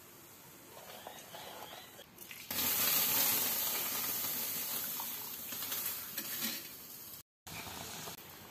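Water pouring: a hissing rush starts suddenly about two and a half seconds in and slowly fades.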